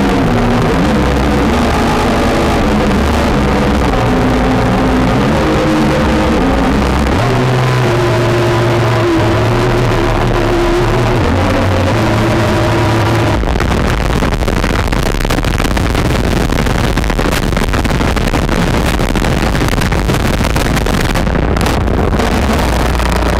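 Harsh noise wall: loud, dense, unbroken distorted noise from a small handheld amplified stringed instrument. In the first half low droning tones step and shift in pitch under the noise; about thirteen seconds in it thickens into a steadier, more uniform wall with a deep rumble.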